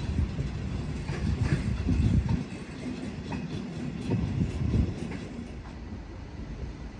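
Freight train of tank wagons rolling past, the wheels knocking at irregular intervals over a low rumble, dying away in the second half as the last wagons go by.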